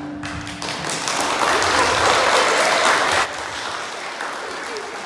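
Audience clapping and applauding, building up and staying strong for a few seconds, then dropping suddenly to quieter applause a little after three seconds in.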